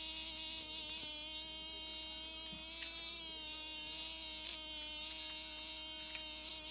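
A steady electrical buzz at one constant pitch, with faint clicks here and there.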